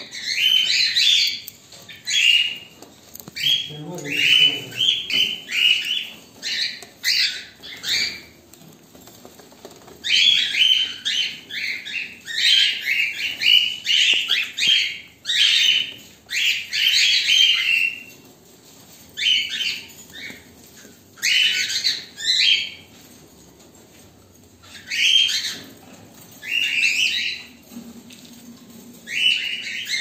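Cockatiels chirping: repeated short, high calls coming in quick clusters, with a couple of brief pauses.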